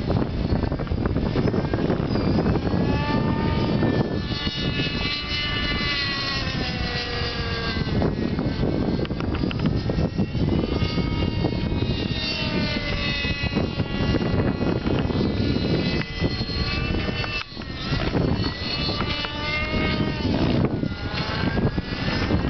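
Align T-Rex 600N RC helicopter's nitro glow engine and rotor blades running hard through 3D aerobatics, the engine whine gliding up and down in pitch every few seconds over a steady rotor rumble.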